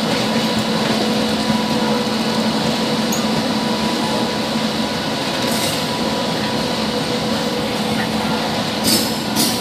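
Passenger coaches of the Simhadri Express rolling slowly past on the next track: a steady rumble with a continuous hum, and brief high-pitched squeals about five and a half seconds in and twice near the end.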